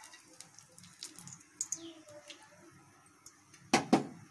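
Two sharp knocks in quick succession near the end, over a quiet background of scattered small clicks and a few short falling chirps.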